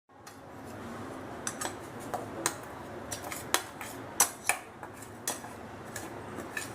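A spoon tapping and scraping against a mixer jar and plate as ground sambar masala powder is taken out, a string of short sharp clinks from about a second and a half in.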